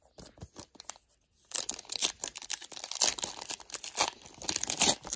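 A trading-card pack wrapper being handled and torn open: a few light clicks at first, then from about a second and a half in, steady crinkling and tearing of the wrapper.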